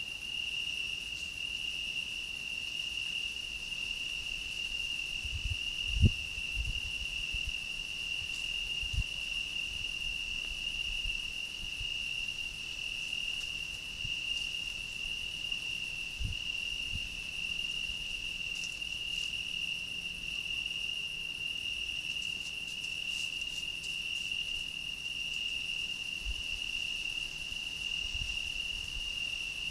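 Crickets trilling in one steady, unbroken high-pitched chorus, with a few short low thumps, the loudest about six seconds in.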